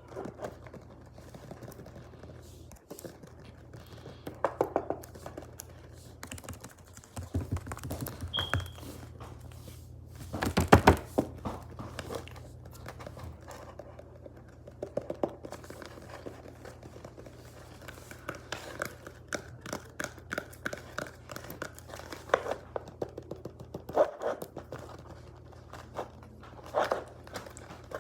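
Tapping on objects in bursts of quick taps, separated by quieter gaps; the loudest flurry comes about eleven seconds in.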